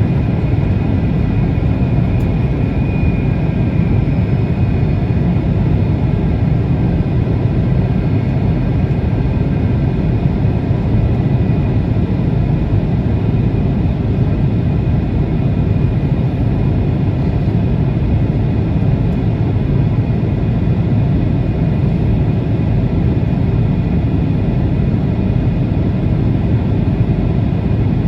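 Steady, unbroken rumble of a jet airliner, with a few faint high whining tones running through it.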